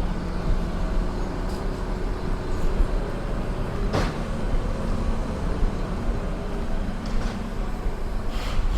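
An engine running steadily at a construction site, with a sharp knock about four seconds in and a fainter one near the end.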